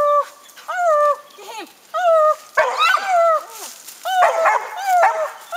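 Catahoula leopard dog tree-barking at a raccoon up a tree: a steady run of drawn-out barks, about one a second, each dropping in pitch and then holding. This is the dog's bark announcing that the quarry is treed.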